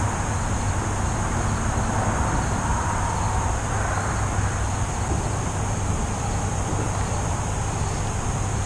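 Steady outdoor ambient noise: a low rumble with a constant hiss and no distinct impacts or events.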